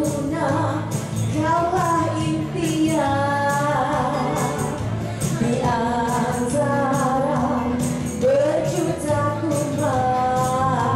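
A woman singing a melody into a handheld microphone over a backing music track played through a PA speaker, with a regular high percussion beat.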